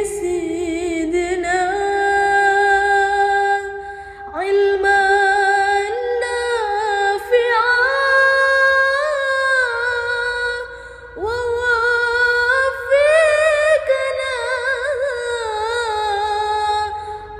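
A woman singing a slow melody with long held notes, wavering vibrato and sliding ornaments, the phrases pausing briefly about four and eleven seconds in.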